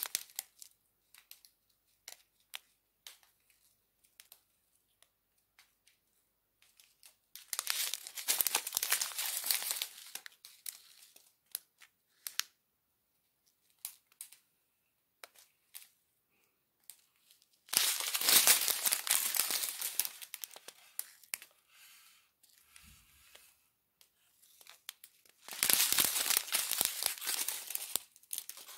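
Small plastic zip bags of diamond-painting drills crinkling as they are handled, in three bursts of a few seconds each, with small scattered rustles and ticks between.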